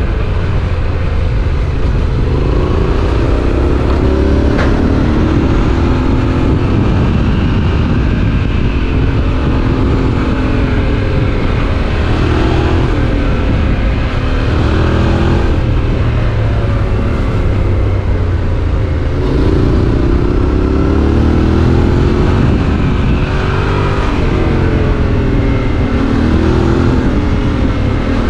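Yamaha Ténéré 700's parallel-twin engine with an Akrapovič exhaust running as the motorcycle is ridden, its pitch rising and falling again and again as the throttle opens and closes, over a steady low rumble.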